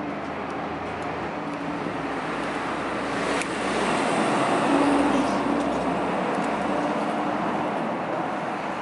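Steady road traffic noise, swelling as a vehicle passes about halfway through, with a single sharp click about three and a half seconds in.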